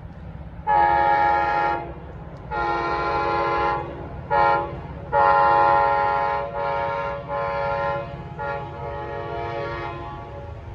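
New Jersey Transit PL42AC diesel locomotive's multi-note air horn sounding the grade-crossing warning as the train approaches: long, long, short, long, then the last note drawn out in three more shorter blasts. A steady low rumble runs underneath.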